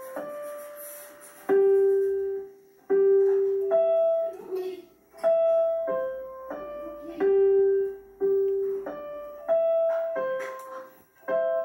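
Slow, simple melody played one note at a time on a digital piano by a child, each note held and left to ring out before the next.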